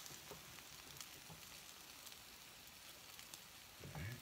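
An omelet sizzling faintly in a frying pan: a soft, even hiss with a few light ticks.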